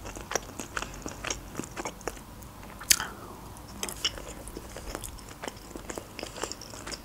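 A person chewing boiled pelmeni dumplings: a string of small, irregular mouth clicks, with one sharper click about three seconds in.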